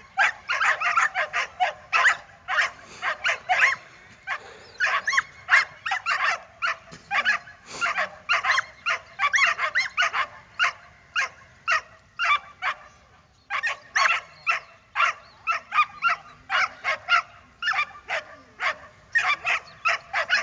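A dog yipping and whining over and over, several short high cries a second, with brief pauses about four and thirteen seconds in.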